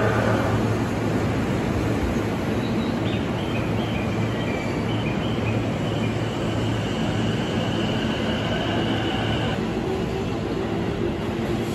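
Electric trains at a station platform: the Hitachi GTO-VVVF sound of the departing Tobu Spacia limited express fades out in the first moment. This is followed by a steady high whine over a general rumble, and near the end a low motor hum sets in as the Akagi limited express starts to pull out.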